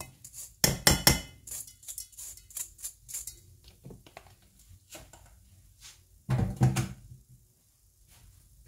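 Washed rice tipped from a metal mesh strainer into a rice cooker's inner pot: the strainer knocks twice against the pot about a second in, followed by light clicking and scraping as the last grains are shaken out, then a single dull thunk about six seconds in.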